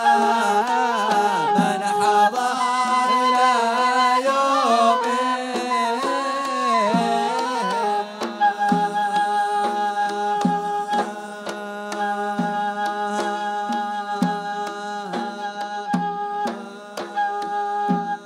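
Zarbadi wedding music. For about the first eight seconds a singer carries the melody over drums. After that a wind instrument plays long, held melody notes over steady drum beats.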